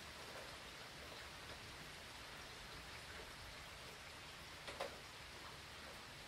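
Steady hurricane rain falling, faint and even, with two louder drops hitting close by in quick succession about three-quarters of the way through.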